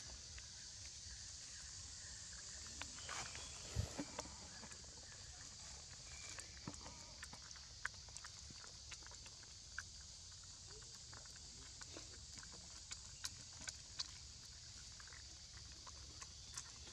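Young macaques jostling and sucking at a small plastic milk bottle held out to them: faint, scattered clicks and taps, the loudest about four seconds in, over a steady high hiss.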